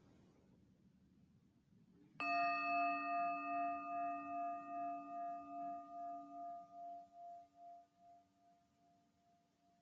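Singing bowl struck once, ringing with a slow pulsing wobble and fading away over about seven seconds, sounded to mark the end of a silent meditation.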